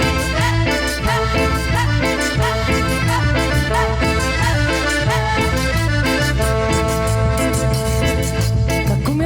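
Cumbia band playing an instrumental passage with a steady dance beat.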